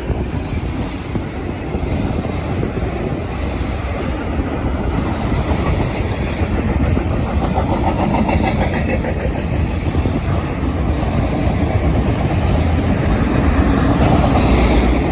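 Freight train cars rolling past, with a steady rumble of steel wheels on the rails that grows a little louder near the end.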